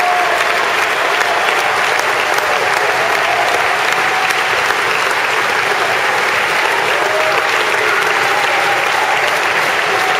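Steady, sustained clapping from a crowd of spectators and players, with a few faint voices calling out through it.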